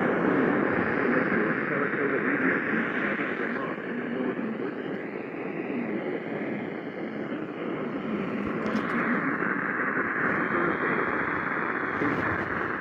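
A weather radio receiver hissing with static as the NOAA Weather Radio signal fades, with the automated broadcast voice lost under it. The hiss is steady, dipping a little in the middle before swelling back.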